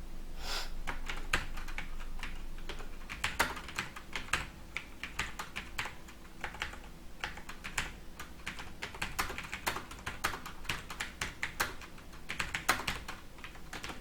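Computer keyboard keys clicking in quick, irregular runs of typing, several keystrokes a second, with short pauses between runs.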